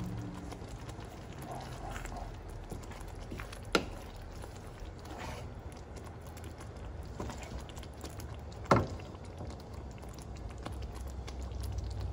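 Wooden spoon stirring a thick chilli mixture in a pan, with faint scraping and two sharp knocks of the spoon against the pan, about four and nine seconds in, over a low steady rumble.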